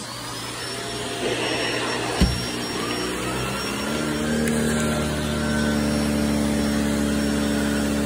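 Vacuum cleaner switched on and spinning up with a rising whine, with a sharp thump about two seconds in, then running steadily at full power on a 120-volt wall outlet, drawing about 1,070 watts.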